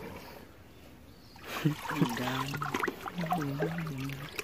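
Shallow water splashing and trickling as hands work in a plastic basket held in a muddy ditch. From about a second and a half in, a low male voice joins, drawn out and wavering in pitch.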